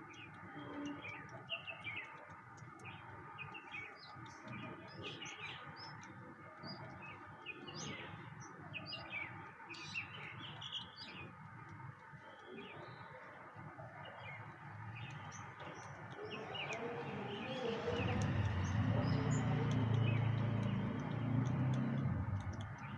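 Birds chirping, many short calls in quick succession. In the last few seconds a louder low rumble rises under them.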